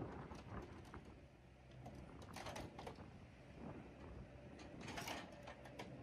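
Crunching footsteps on packed snow, in two short clusters, over the low hum of idling engines.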